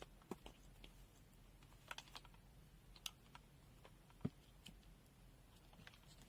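Near silence with a few faint, scattered clicks and light taps from handling test equipment, and one slightly louder thump about four seconds in.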